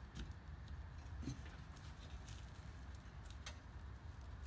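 Faint handling noise of a small bungee cord being worked through a hole in a mesh rope bag, with soft scattered ticks, the clearest about three and a half seconds in, over a low steady hum.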